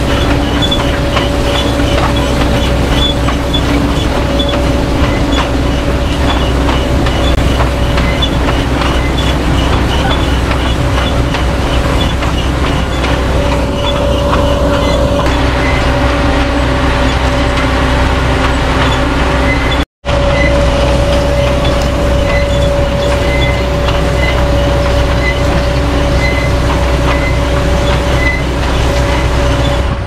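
Grimme Ventor 4150 self-propelled potato harvester running while lifting a crop: a steady mechanical drone with a constant whine and a regular ticking of the machinery. The sound drops out for an instant about two-thirds of the way through.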